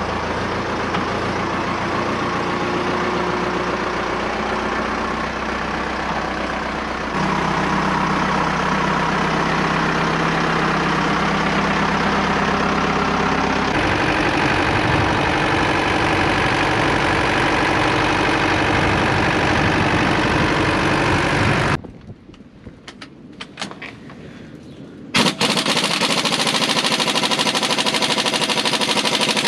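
Older Fendt tractor's diesel engine running steadily, then running as the tractor drives along. Near the end a steady loud run of a handheld power tool at the rear hitch, an air impact wrench working on the tight hitch bolts.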